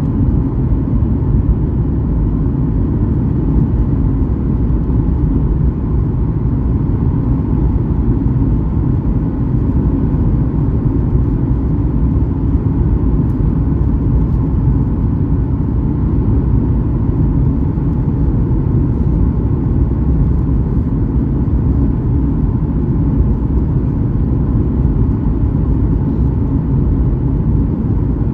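Steady, loud cabin noise of a Boeing 737-8200 on final approach with flaps extended, heard from a window seat over the wing: CFM LEAP-1B engine rumble and airflow noise, unchanging throughout.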